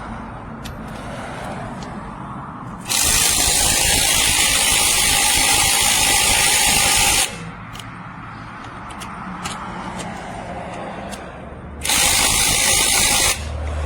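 AOBEN 21V cordless impact wrench hammering on a wheel's lug nut in two runs: a loud, steady rattling burst of about four seconds, then a shorter one of about a second and a half near the end.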